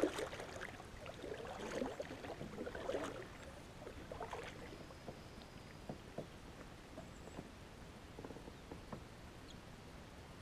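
Kayak paddle strokes: the blades dip and splash in calm water about every second and a half for the first few seconds, then only faint scattered ticks.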